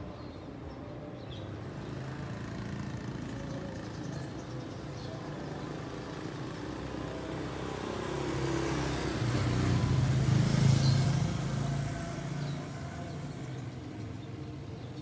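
A car passing on the road, growing louder to a peak about ten seconds in and then fading away, over a steady low hum of traffic.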